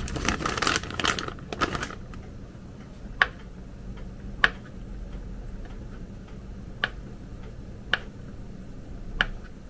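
A plastic sausage packet rustling, then an all-steel kitchen knife slicing small skinless sausages, its blade tapping sharply on the cutting board five times, a second or two apart.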